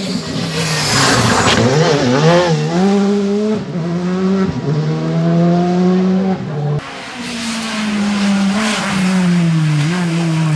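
Rally cars at full throttle on a tarmac stage: a rally car accelerates hard out of a bend, its engine note climbing and dropping through quick gear changes and throttle lifts, with tyre noise. About two-thirds in, a second rally car's engine revs past, falling in pitch near the end.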